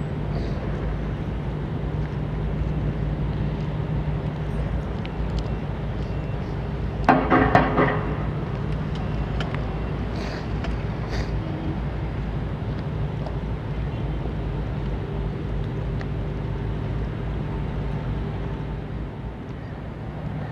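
Steady low engine drone of a large container ship underway. A short, loud pitched call, about a second long, cuts in about seven seconds in.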